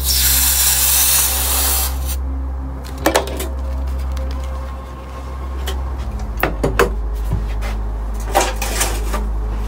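Hot cast fine silver tile quenched in a steel bowl of water: a loud sizzling hiss for about two seconds, then a few sharp metallic clinks of the tongs and tile against the bowl.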